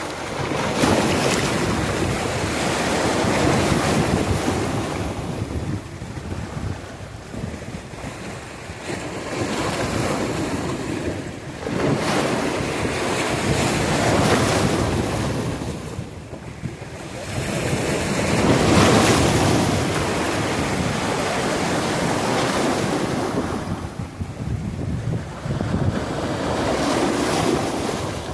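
Ocean waves breaking and washing in, the rush of surf swelling and falling back again every few seconds.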